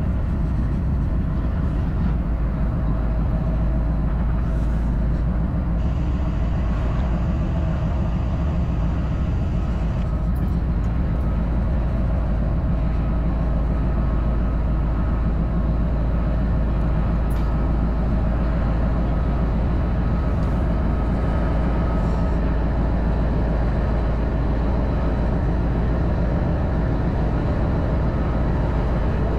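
Norfolk Southern diesel locomotive running with a steady low rumble as it crawls slowly ahead at low throttle.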